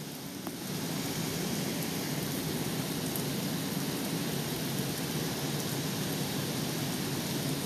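Heavy thunderstorm rain falling steadily: an even, continuous hiss of rain on the ground and trees.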